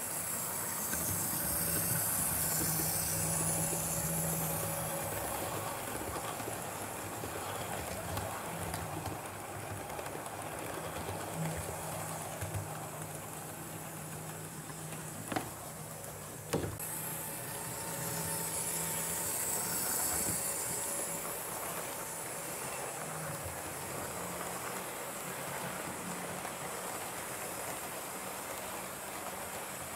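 Model electric train running on a layout: a steady motor hum under the rolling of wheels on the rails, swelling twice as the train passes close. Two sharp clicks about a second apart come near the middle.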